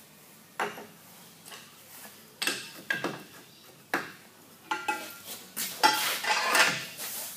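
Steel tools clanking on a lathe's compound slide and Multifix tool post as a tool holder is lifted off and a long spanner is fitted onto the tool post's clamping nut. There are a dozen or so sharp metallic clinks and knocks, some ringing briefly, most densely in the last two seconds.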